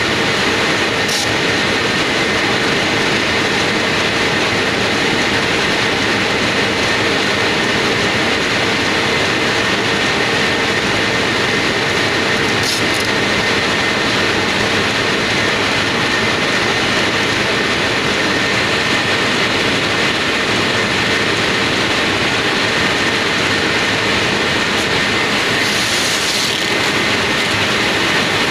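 Factory machinery running steadily: a loud constant mechanical noise with two steady tones. Brief high scratchy sounds come about a second in, near the middle and near the end.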